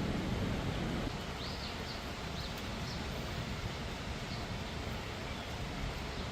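Steady rushing outdoor noise, with a few short high bird chirps about one and a half to four and a half seconds in.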